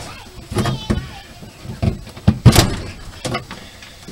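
Wiring harness being pulled by hand up through the camper floor: irregular rubbing and scraping of the wires, with a handful of short knocks, the loudest about two and a half seconds in.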